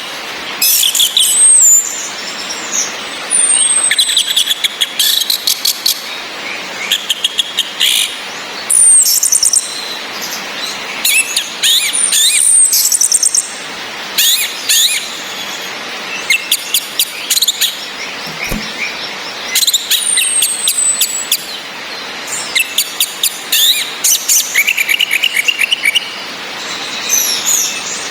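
Orange-headed thrushes calling: rapid trains of sharp, high 'cis' notes from a female, mixed with warbled song phrases and short falling whistles, coming every second or two. A steady hiss of rain runs underneath.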